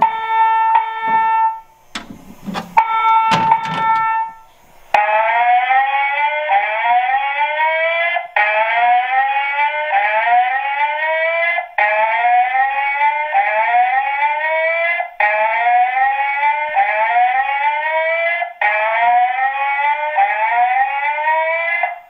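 Voice evacuation fire alarm speaker sounding the FireCom 8500 whoop/chime evacuation tone. Two ringing chime strikes come first, then rising whoops in groups of about four, with a short break every three and a half seconds.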